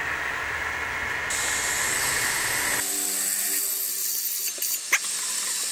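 Small milling machine's spindle running at about 1300 RPM as a drill bit bores into aluminum angle: a steady machine noise with a sharp click near the end.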